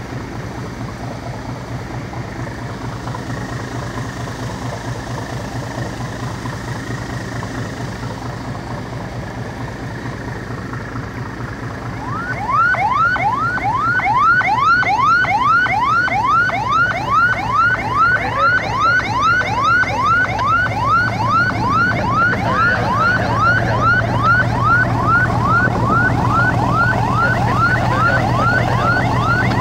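Boat engine running steadily with water rushing past the hull. About twelve seconds in, an electronic siren starts up in yelp mode, a fast, repeating rising wail about twice a second, louder than the engine.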